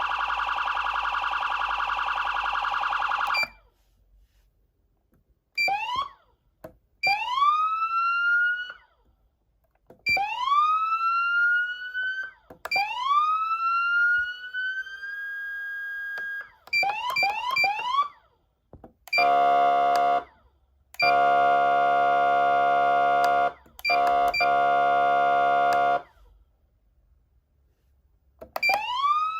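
Federal Signal Platinum SSP3000B electronic siren amplifier sounding a run of siren tones. A steady buzzing tone stops about three seconds in. Then come several rising whoops that cut off at the top, a few quick chirps, and three blasts of a steady horn tone, with another rising whoop at the end.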